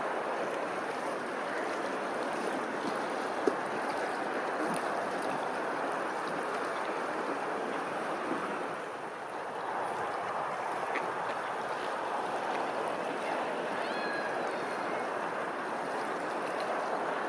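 Steady rush of running water, with one sharp click about three and a half seconds in and a few faint high chirps near the end.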